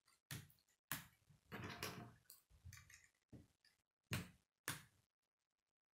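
Plastic K'nex rods and connectors clicking and clacking as they are handled and snapped together, a string of separate sharp clicks, the loudest about one second in and again about four seconds in.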